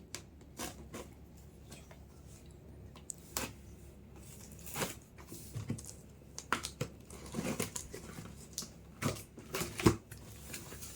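Cardboard shipping box being handled and opened: scattered rustling, scraping and light knocks of cardboard and packing, with one sharper knock near the end.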